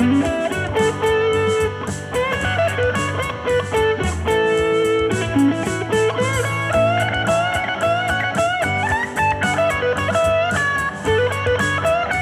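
Stratocaster-style electric guitar playing a short blues-rock lead solo in A major pentatonic, with string bends and vibrato, over a looped backing with a steady beat. The phrases are built to land on chord tones (root, third or fifth) of the A chord as it comes back around.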